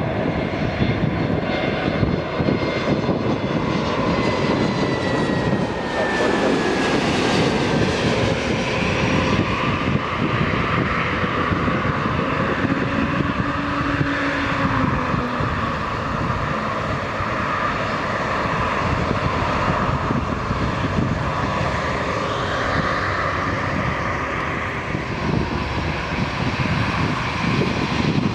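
Airbus A321 airliner's jet engines running on final approach and landing: a continuous jet roar, with a thin whine that falls in pitch as the aircraft passes.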